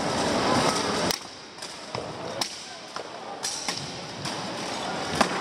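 Weapons striking steel armour and shields in a buhurt melee: a string of sharp, irregular clanging hits, the loudest about five seconds in, over crowd shouting that is loudest in the first second.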